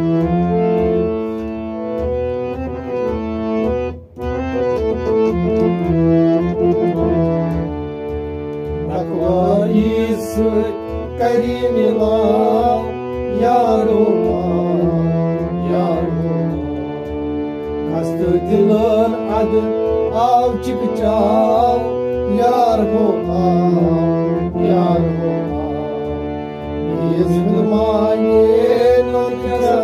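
Harmonium playing a melody over a fast, steady beat on a hand-played pot drum. A man's voice sings along with the harmonium from about nine seconds in.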